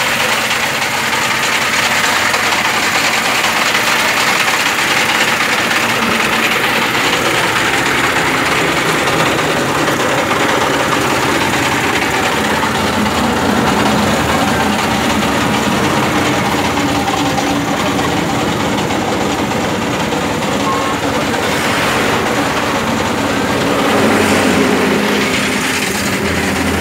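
Steady engine noise from a truck-mounted thermoplastic road marking machine running as it lays a line, with a dense hiss over a low hum.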